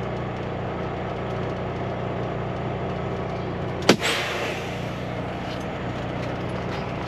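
Cummins X15 diesel of a Kenworth W900 semi truck idling steadily. About four seconds in, a sharp click followed by a short hiss that fades out.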